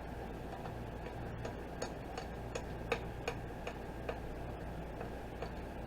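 A run of light clicks, about two or three a second, from small metal spring-snap pieces being handled, over a steady low hum.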